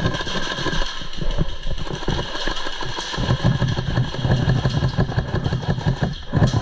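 Airsoft electric guns firing on full auto, a rapid clattering buzz of many shots per second that grows heavier from about halfway through.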